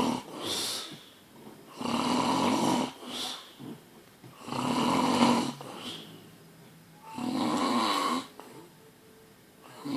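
A person snoring loudly: three long rasping snores on the breath in, about every two and a half to three seconds, each followed by a shorter, softer breath out.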